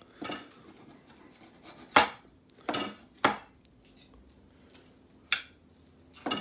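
Steel knife and fork scraping and clinking against a ceramic plate while cutting a small crisp-bottomed pizza, in about five separate strokes, some with a brief ring.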